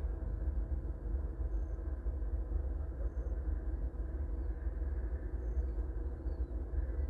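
Distant rail-yard sound: the steady low rumble of diesel locomotive prime movers working across the yard. Faint short high-pitched squeaks come every second or two.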